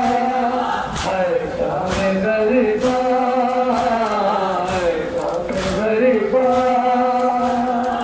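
A male voice chanting a noha, a slow mourning lament with long-held notes, over sharp slaps about once a second from mourners beating their chests in unison (matam).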